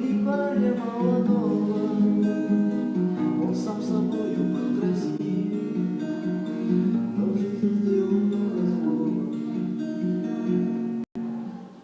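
Acoustic guitar playing chords in a steady rhythm, cutting off abruptly near the end.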